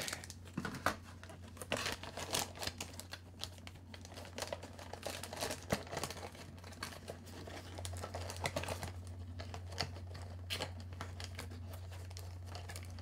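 Plastic packaging crinkling and rustling as it is handled, in irregular small rustles and clicks, over a faint steady low hum.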